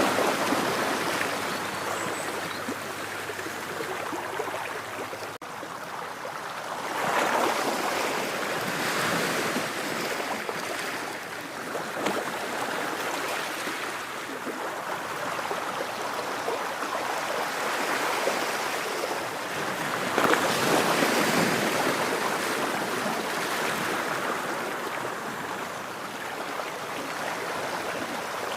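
Ocean waves washing onto a shore: a continuous surf hiss that swells and ebbs as waves break, with louder surges about 7, 12 and 20 seconds in.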